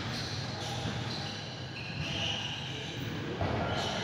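Scattered thuds and knocks in a large hall, over a steady bed of background noise and distant voices.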